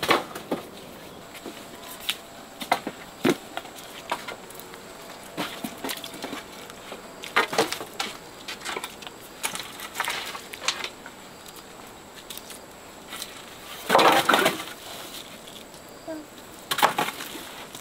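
Wooden poles knocking and clattering against each other and the ground as they are carried and stacked, in scattered knocks with a longer, louder clatter about fourteen seconds in.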